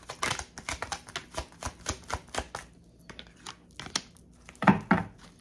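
Tarot cards being shuffled by hand: a quick run of crisp card clicks and flicks for about two and a half seconds, then slower, scattered ones, with one louder card snap near the end.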